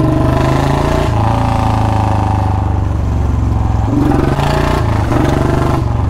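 Royal Enfield Bullet's single-cylinder engine running through its stock silencer as the bike is ridden, a steady low exhaust note that shifts slightly about a second in and again around four seconds. There is no whistle in the exhaust yet.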